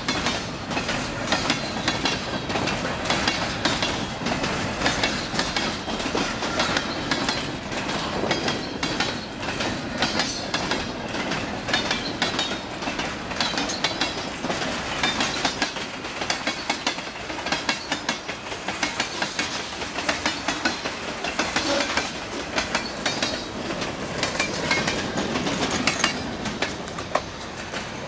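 Freight train cars, boxcars and tank cars, rolling past close by: a steady rumble and rattle with rapid clicking of steel wheels on the rails, easing slightly near the end as the last car moves off.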